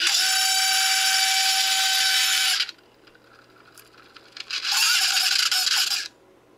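Opened Seagate 1 TB 7200 RPM hard drive buzzing loudly as it is powered and tries to start. There are two bursts: a long one that cuts off after a couple of seconds, then a shorter one near the end. The drive has a head crash and is failing to start properly.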